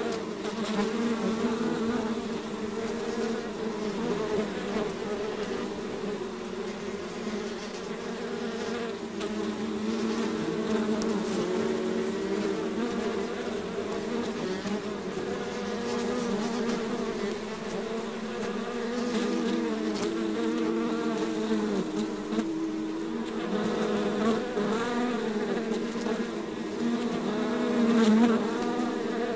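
A swarm of bees buzzing continuously, many overlapping hums that waver up and down in pitch, swelling louder briefly near the end.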